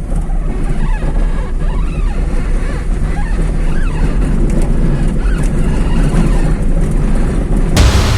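Daewoo Lanos engine idling, heard from inside the cabin, while the steering wheel is turned back and forth, with faint short squeaks from the steering column. Music starts abruptly near the end.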